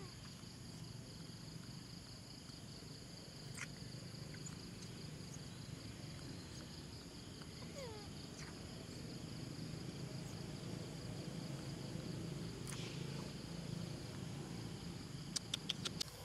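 Outdoor ambience: a steady high insect drone over a low rumbling noise, with a short falling chirp about halfway through and a quick run of about five clicks near the end.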